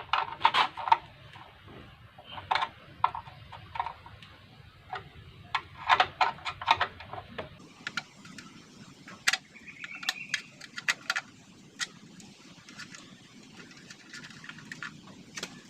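Spanner working a motorcycle's chain-cover bolt loose: irregular sharp metallic clicks and clinks in short clusters.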